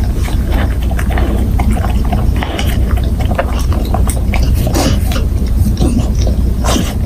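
Golden retriever licking and sniffing at steak scraps on the floor: irregular wet licking and smacking clicks with a few short sniffs, over a steady low hum.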